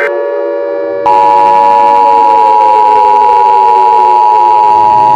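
Emergency Alert System two-tone attention signal, starting abruptly about a second in and holding loud and steady, over a siren that is winding down in pitch; near the end a siren begins to wind up again.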